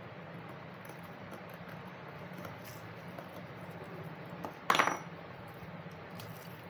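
A single sharp metallic clink, with a brief ring, as a small metal object strikes the work surface about two-thirds of the way in, among faint ticks of small metal battery parts being handled.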